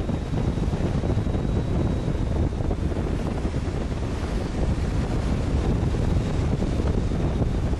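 Wind buffeting the microphone over the rush of a ship's bow wave as it runs at speed through the sea: a steady, low-heavy rumble of noise.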